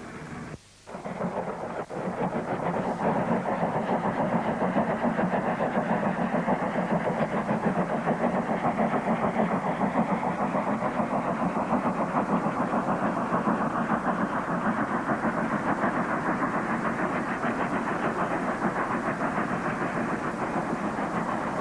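Steam locomotive hauling a passenger train, its exhaust beating in a fast, even rhythm over a steady rumble. The sound drops out briefly about a second in.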